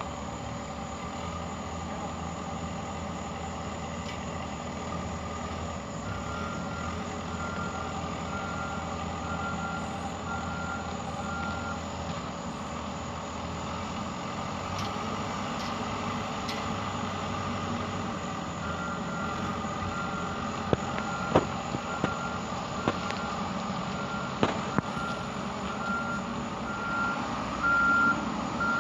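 Truck's reversing alarm beeping at an even pace, about one and a half beeps a second, in two spells, over a steady engine running. A few sharp knocks come in the later part.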